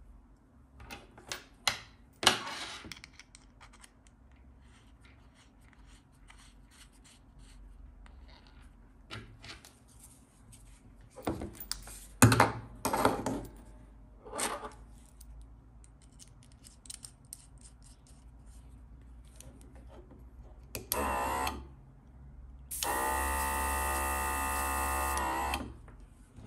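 Metal threaded fittings clicking and scraping as an air hose is screwed onto a small cordless rechargeable airbrush compressor and its airbrush. Near the end the compressor's little motor buzzes briefly, then runs steadily for about three seconds with a hiss before cutting off.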